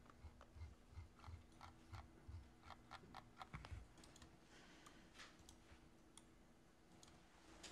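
Faint, irregular clicking and tapping of a computer keyboard and mouse, with a few soft low thumps of handling on the desk.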